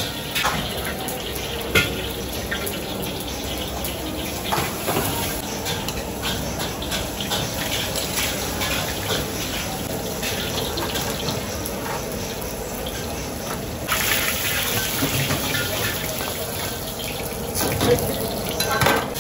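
Water running steadily from a tap into a container at a wok station, with scattered clinks of bowls and utensils. About fourteen seconds in, the hiss of frying in the wok comes in.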